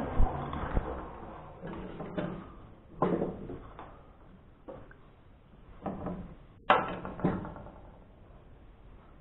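Braun juice extractor's motor spinning down in the first moment, then scattered knocks and clatters of kitchen things being handled and set down on a counter.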